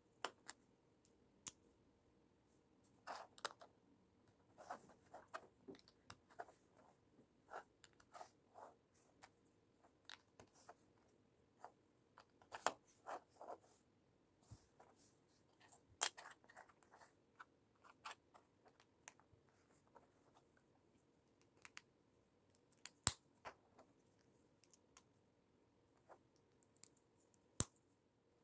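LEGO bricks and plates being handled and pressed together: scattered small plastic clicks and snaps at an uneven pace, a few of them sharper than the rest.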